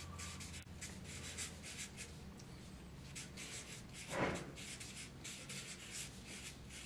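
Felt-tip marker writing on kraft paper pinned to a wall: a run of short, faint, scratchy strokes as a word is lettered. A steady low hum runs underneath, and there is one brief soft sound about four seconds in.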